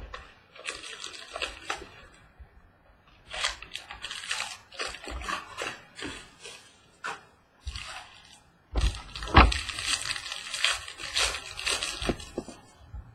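Crinkling and tearing of a trading-card pack's plastic wrapper, in irregular bursts, with a longer spell of crinkling near the end.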